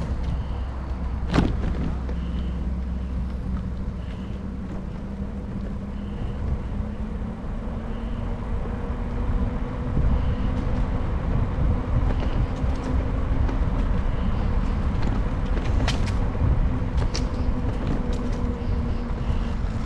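Wind and road noise from riding a bicycle, with a steady low hum and a few sharp clicks.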